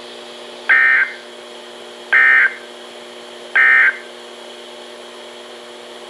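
EAS end-of-message code from a Midland 13-907 NOAA weather radio: three short bursts of buzzy data tones about a second and a half apart, signalling the end of the Special Marine Warning broadcast. A steady low hum from the radio runs underneath.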